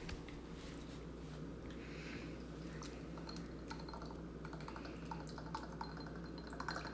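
Faint trickle of lime juice poured from a bottle into a small measure, with light clicks and taps that come more often near the end, over a low steady room hum.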